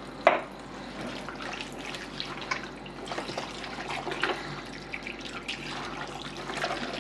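Tap water running into a stainless steel sink full of raw beef chunks while hands rub and turn the wet meat, with many small splashes and knocks. A single sharp knock about a third of a second in is the loudest sound.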